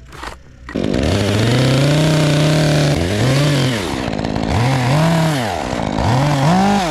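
Stihl chainsaw revving up sharply about a second in and running at high revs, then throttled down and back up three times as it scores the traced outline of a hollow's door into the bark.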